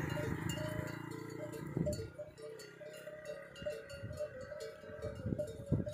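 Bells worn by a herd of walking camels clank and ring irregularly with the animals' steps. A low motor hum fades out over the first two seconds.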